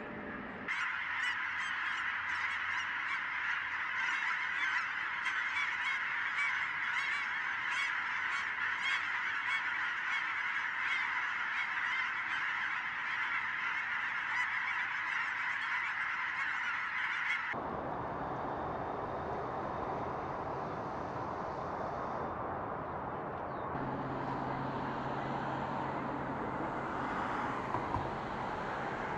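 A large flock of geese honking, many calls overlapping in a dense, continuous chorus. About two-thirds of the way in the honking cuts off abruptly, and a steady, even background noise follows.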